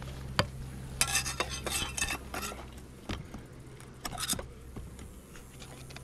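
Metal hive tool scraping and clicking against the wooden base of a beehive and a wooden shim while levelling the hive: a sharp click, then a run of rasping scrapes, and another short burst of scrapes about four seconds in.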